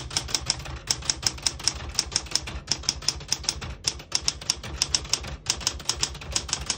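1980 Smith-Corona Classic 12 manual portable typewriter being typed on at a steady pace: rapid key strikes, about six a second, with brief gaps between words.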